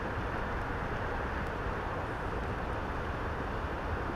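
Steady rush of a stream's current flowing past a rocky bank, an even, unbroken water noise.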